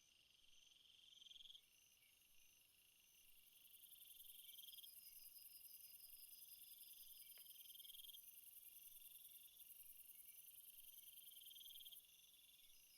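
Faint night insect chorus in a rainforest: crickets chirping in fast, even pulses, a lower buzzing insect call that swells and breaks off every few seconds, and a very high continuous trill that sets in after a few seconds and cuts off near the end.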